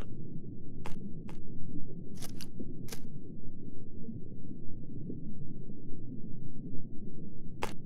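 Parrotfish biting and grinding coral with its beak: short sharp crunching clicks, five in the first three seconds and one more near the end, over a steady low rumble.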